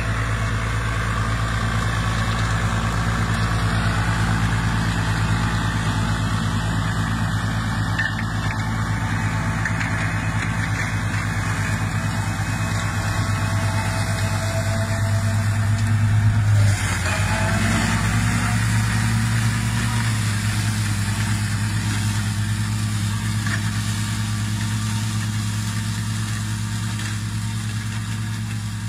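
Ferrari compact tractor's diesel engine running steadily under load while driving an ORSI flail mower through tall grass. About halfway through the engine note briefly swells and shifts, and the sound grows fainter near the end.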